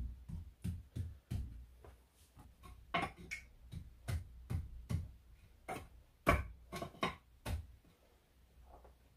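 Bricks being tapped down into fresh mortar to bring the course level: a run of short knocks, about two to three a second, stopping about seven and a half seconds in.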